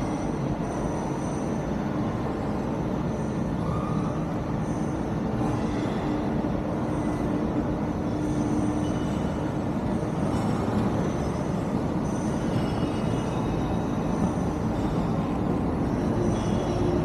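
Steady mechanical rumble with a low hum, from a running escalator.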